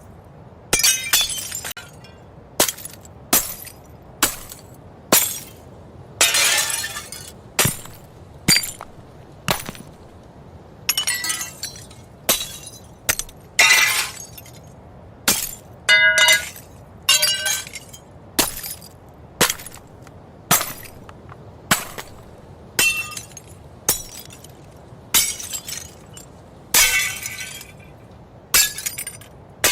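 A string of separate glass-breaking sound effects, roughly one a second: each a sudden smash followed by ringing, tinkling shards that fade quickly. A few run longer as a drawn-out shatter.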